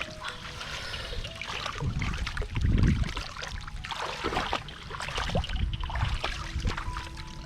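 Water sloshing, trickling and splashing in irregular bursts, with a heavier low thump about three seconds in.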